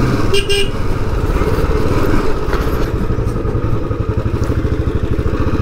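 Royal Enfield Bullet 350's single-cylinder engine running steadily while the bike is ridden, a fast even pulse of firing strokes. A brief high tone sounds about half a second in.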